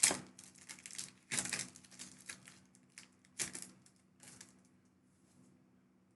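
Foil booster pack wrapper being torn open and crinkled in the hands: several sharp crackling rustles in the first few seconds.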